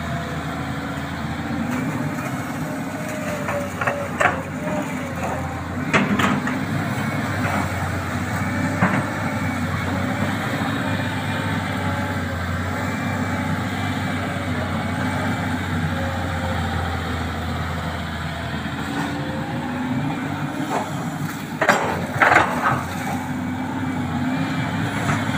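Sany hydraulic crawler excavator's diesel engine running steadily while it digs mud from a shallow ditch, its pitch wavering as the arm and bucket work. A few sharp knocks stand out, two close together near the end.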